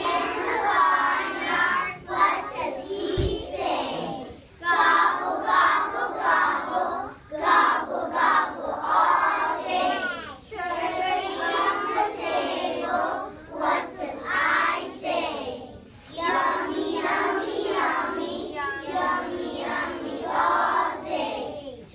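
A group of young children singing a Thanksgiving song together, in phrases of a few seconds with brief pauses between lines.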